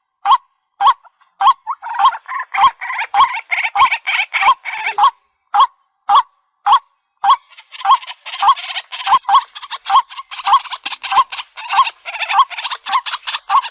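Waterhens calling: a loud note repeated about twice a second, joined by a denser, harsh chattering chorus from about two seconds in, which breaks off briefly around five seconds and resumes a couple of seconds later.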